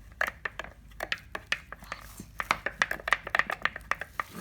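Rapid, irregular clicking and crackling of sticky slime-making mixture being handled and worked, with a crinkling quality.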